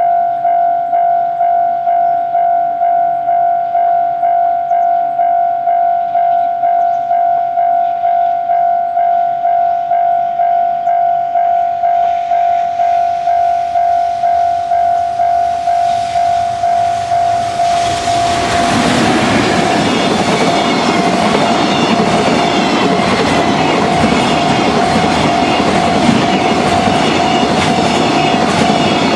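Level-crossing warning bell ringing steadily about twice a second. About 18 seconds in, a JR Freight EF210 electric locomotive with its container freight wagons passes close by: loud running noise with rhythmic wheel clatter over the rail joints, the crossing bell still sounding underneath.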